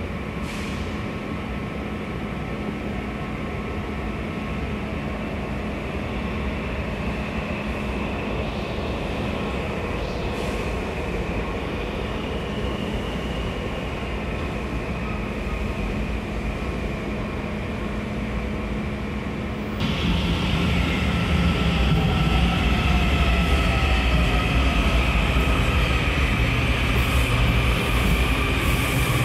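Washington Metro subway train in an underground station: a continuous rumble of wheels and running gear with faint steady whines. About twenty seconds in the sound turns abruptly louder, and several motor whines slide in pitch.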